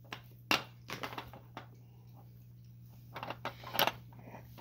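Irregular sharp clicks and knocks as a rabbit feeds at a plastic puzzle treat tray, nosing its plastic cups and eating pellets. The loudest knock comes about half a second in, with more clusters around one second and again after three seconds.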